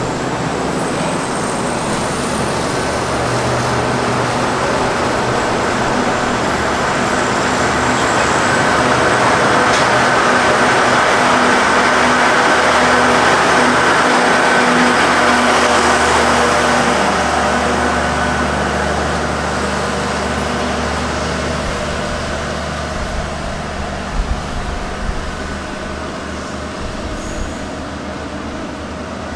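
KTM passenger train pulling out and running past along the platform, its rumble swelling to its loudest about halfway through, then fading as it moves away down the line.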